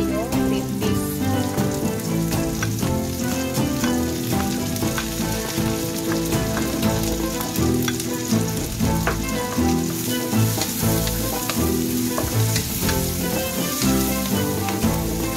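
Diced sausage, garlic and mixed vegetables (carrots, corn, green peas) sizzling in hot oil in a wok, with the vegetables tipped in and then stirred with a wooden spatula.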